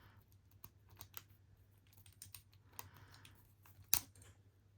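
Lock pick working the pins of a six-pin brass padlock under tension: scattered light clicks and scrapes, with one sharper click about four seconds in.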